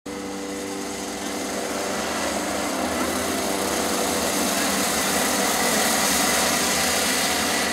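Several two-stroke racing kart engines buzzing at high revs together, growing louder over the first couple of seconds as the pack comes closer, then holding steady.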